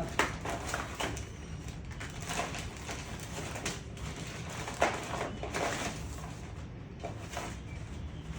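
Handling noises: scattered light knocks and rustles as small objects are moved about, over a steady low hum. The sharpest knocks come just after the start and about five seconds in.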